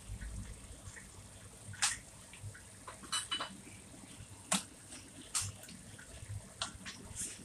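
Minced pork and eggplant sauce simmering in a stainless steel wok: faint bubbling with about seven sharp pops and spits at irregular intervals as bubbles burst.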